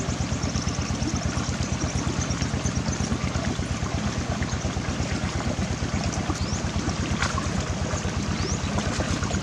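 A small engine running steadily at constant speed with a fast, even pulse, over the trickle of running water.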